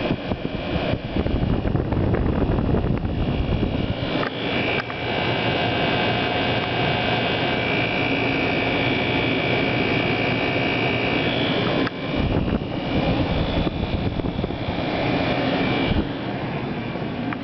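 Two 1987 Friedrich Quiet Master 22,000 BTU window air conditioners running at full blast, a loud steady rush of blown air with an uneven low rumble that dips briefly twice near the end.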